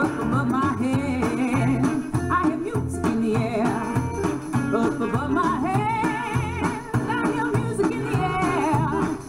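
A recording of an African-American spiritual: a woman singing a melody with vibrato over instrumental accompaniment with a steady beat.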